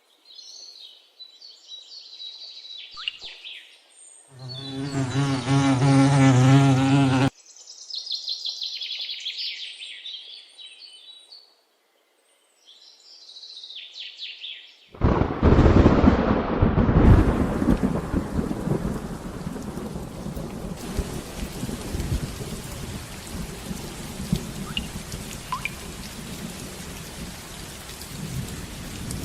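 Birds chirping, broken about four seconds in by a loud, low droning tone that lasts about three seconds and cuts off suddenly. About fifteen seconds in, a loud rumble of thunder comes with heavy rain, which keeps falling steadily to the end.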